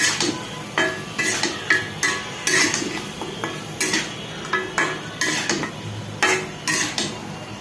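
Cooking spoon stirring raw chicken pieces in their spice paste in a pot, scraping and clinking against the pot about twice a second, as the spices are worked into the meat.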